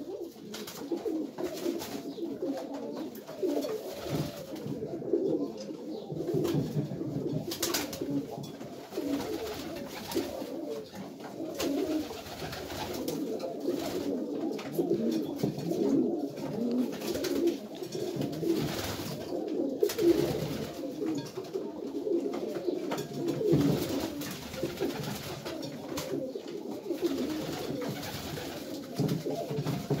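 A flock of domestic fancy pigeons, satinettes among them, cooing continuously in overlapping calls. Short, sharp wing flaps break in now and then as birds take off and land on perches.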